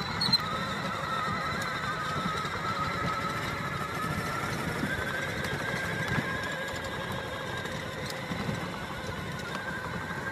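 Battery-powered ride-on toy Jeep driving on asphalt: its electric drive motors and gearbox give a steady whine that rises a little in pitch partway through, over the low rumble of hard plastic wheels rolling.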